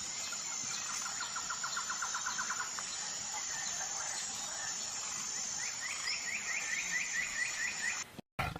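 Bird calls: two rapid trills of short, repeated notes, the second higher and made of quick down-slurred notes, over a steady high hiss of outdoor ambience. Near the end the recording cuts off and a loud animal roar begins.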